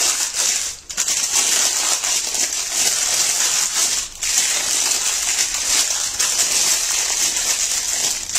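Butter paper crinkling and rustling as hands fold it over and press the warm jaggery-and-sesame mass inside it, with brief pauses about a second in and about four seconds in.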